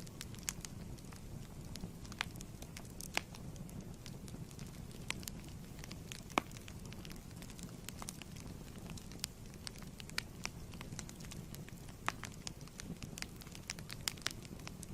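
Wood fire burning in a fireplace: a steady low rumble of flames with irregular sharp crackles and pops, a few louder pops standing out, the loudest about six seconds in.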